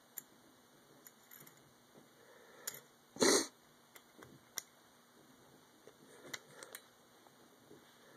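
Small metallic clicks and scrapes of a pistol's loose, non-captured recoil spring and guide rod being handled and fitted back into a steel slide during reassembly. The clicks come scattered, one every second or so, with one louder short rush of noise a little past three seconds in.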